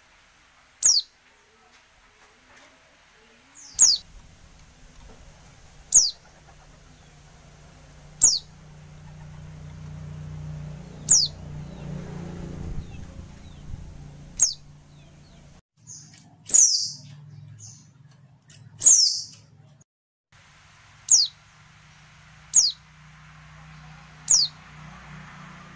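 A female white-eye (pleci) gives short, high, thin call notes that drop sharply in pitch, roughly one every two seconds. Two calls about two-thirds of the way through are longer and fuller. A faint low hum runs underneath from about four seconds in.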